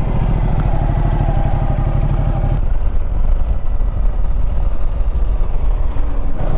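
Motorcycle engine running under way, a steady low rumble of close-set firing pulses; the sound changes abruptly about two and a half seconds in.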